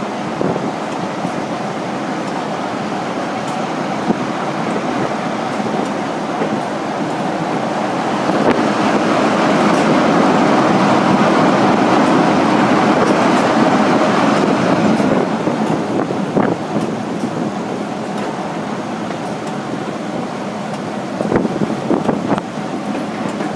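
Diesel-hauled passenger train running, heard from an open carriage window: a steady mix of engine and wheel-on-rail noise that grows louder for several seconds in the middle. Near the end come a few sharp clicks of wheels over rail joints.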